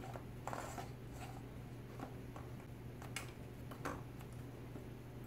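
Measuring cup pressing graham-cracker crumbs into the bottom of a metal springform pan: soft crunching scrapes and a few light clicks of the cup against the pan, over a faint steady hum.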